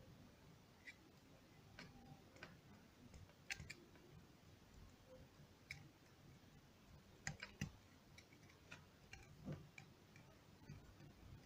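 Near silence broken by faint, irregular small clicks and taps as a thin tool tucks cotton wick into the metal deck of a Geekvape Zeus X rebuildable atomizer. The sharpest clicks come about a third of the way in and again around two-thirds of the way through.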